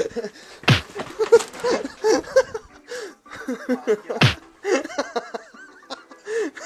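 Two hard punch-impact sound effects, one about a second in and one about four seconds in, over people laughing and yelling.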